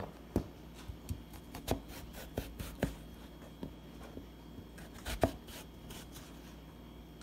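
Chef's knife slicing a peeled cucumber into strips on a cutting board: unevenly spaced knocks of the blade meeting the board, the loudest a little after five seconds in.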